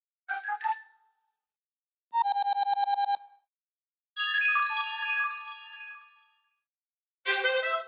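A series of classic iPhone alert tones played one after another with silence between: a quick two-note chime, a fast run of rapidly repeated notes, a longer ringing cluster of notes that slowly fades, and another alert beginning near the end.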